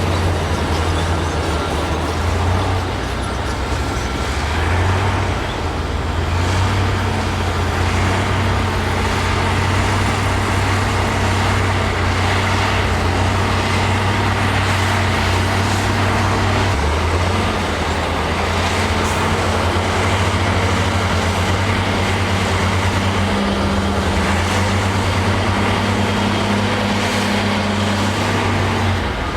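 Heavy diesel earthmoving machine running continuously at high volume, its low engine note shifting up and down a few times as engine speed changes.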